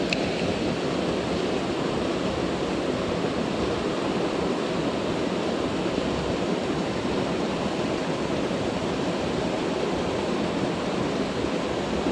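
Steady rush of falling and running water from a mountain-stream waterfall, an even noise with no breaks.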